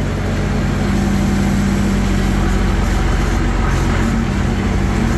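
Allis-Chalmers 190 XT Series III tractor's six-cylinder engine running steadily, heard from inside its metal cab.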